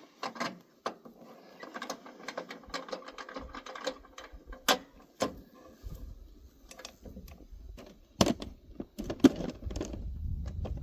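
Metal hand tools and pump parts being handled: a run of small clicks and clinks, with sharper knocks about five and eight seconds in and a low rumble from about six seconds on.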